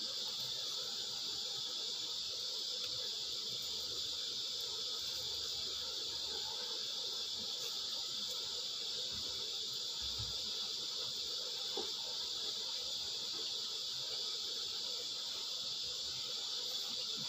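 Steady high-pitched chirring drone of insects, unchanging throughout, with a faint low knock about ten seconds in.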